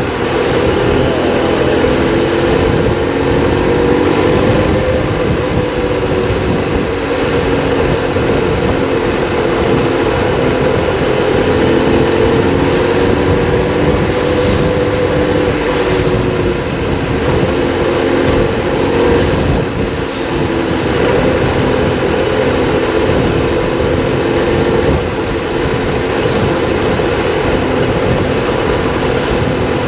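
Triumph Explorer 1200's three-cylinder engine running steadily on the move, its pitch drifting gently up and down, under a heavy wash of wind and road noise.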